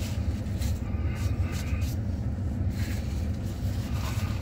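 Steady low rumble of an idling vehicle heard inside the truck cab, with faint chewing and food-handling sounds.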